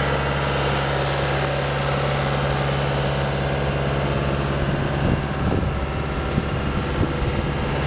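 Caterpillar 252B skid steer's Cat 3044C four-cylinder diesel engine running steadily. Its pitch wavers briefly about five seconds in.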